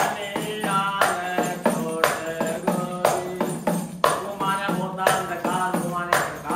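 A man singing a Hindi devotional bhajan, accompanying himself on a small hand-held frame drum with jingles, a tambourine, struck in a steady beat of about one stroke a second with lighter jingling between.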